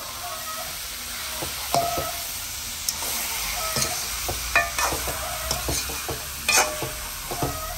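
A hand mixing raw mutton into fried onions, green chilies and spices in an aluminium pot, with wet squishing of meat and a light sizzle from the hot pan. Short clicks and taps run through it.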